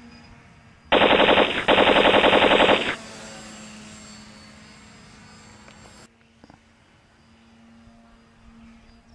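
Two rapid bursts of machine-gun fire, a sound effect of about a second each, starting about a second in. After them, the faint steady whine of a radio-controlled biplane's small electric motor.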